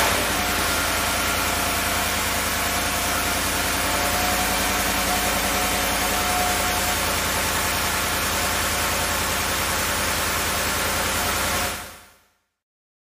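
Ford F-150 5.0 L V8 exhaust idling steadily on a cold start, settling from the start-up flare into an even fast idle. It fades out about twelve seconds in.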